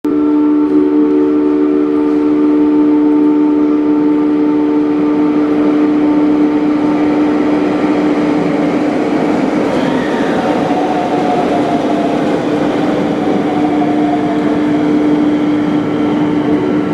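JR West 521 series AC/DC electric multiple unit at a station: a steady electrical hum made of several held tones, with a falling whine about ten seconds in.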